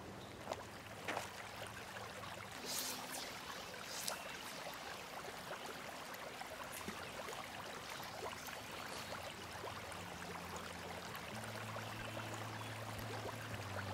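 Faint outdoor ambience: a steady soft hiss with a few light clicks in the first few seconds. Low sustained music tones swell in near the end.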